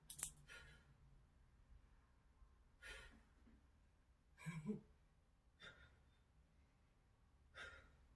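A woman breathing hard while holding an elbow plank: short, faint breathy exhales every couple of seconds, one near the middle voiced like a sigh. A sharp click right at the start.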